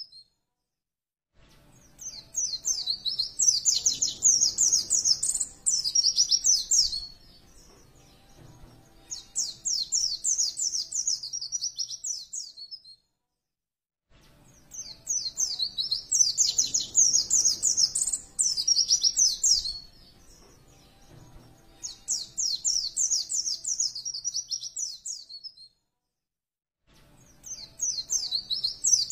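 White-eye (pleci) song: fast, high, twittering phrases that come in bouts of about eleven seconds, each cut off by a second or so of dead silence, typical of a looped masteran training recording.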